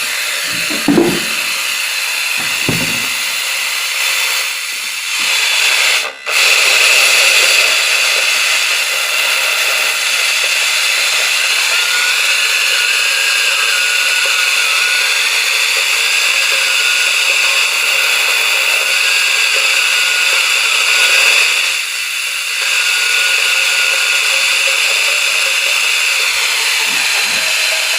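Loud, steady, harsh hiss and buzz from a Sony home theater's speaker output where a song should be playing. It cuts out briefly about six seconds in. The sound is unclear and garbled, the sign of a fault in the unit's audio output.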